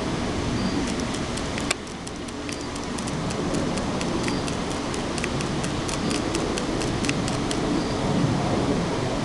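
Small motorized rotating display stand running with a steady low hum and many light, irregular ticks, and one louder click about two seconds in.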